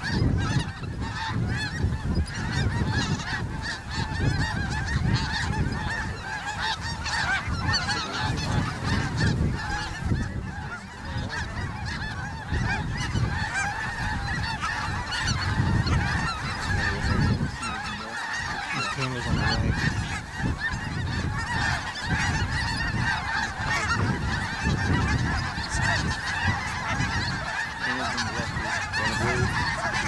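A large mixed flock of snow geese and greater white-fronted (specklebelly) geese calling overhead: a dense, unbroken chorus of many overlapping goose calls.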